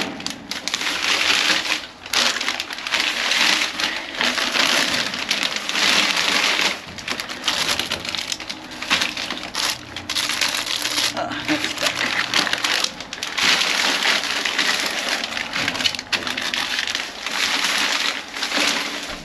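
Plastic bags and snack packaging rustling and crinkling as they are handled, in long irregular stretches broken by a few short pauses.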